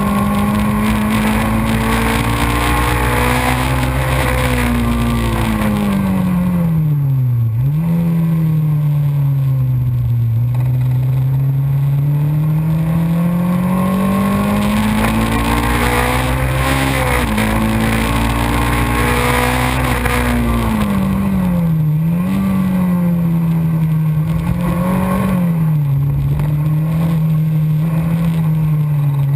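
A Xenon kit race car's engine, heard onboard, running hard at racing speed. Its pitch climbs slowly and then drops sharply several times, most deeply about seven seconds in and again about seventeen seconds in. Steady wind and road noise run under it.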